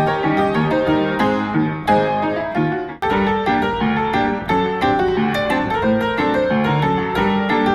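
Background piano music, a steady run of quick notes; it drops out for an instant about three seconds in and picks straight up again.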